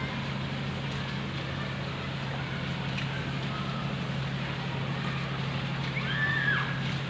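Steady rainfall hiss over a low, constant hum, with a brief rising-and-falling tone about six seconds in.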